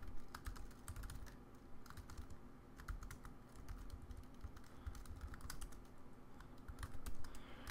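Computer keyboard being typed on: quick, irregular, quiet keystroke clicks over a faint steady low hum.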